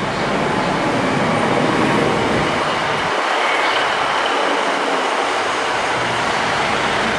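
Class 150 Sprinter diesel multiple unit running slowly into the platform and passing close by: a steady rumble of wheels on the rails with a faint high squeal.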